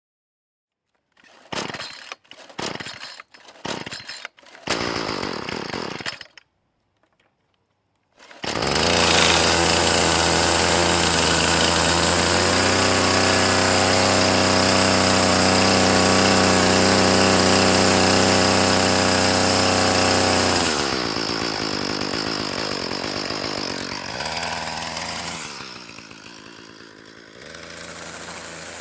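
Gas string trimmer (weedwacker) engine: a few short bursts in the first six seconds, then after a pause the engine runs loud and steady at high revs for about twelve seconds. About 21 s in, the revs drop and it settles to a quieter, lower idle near the end.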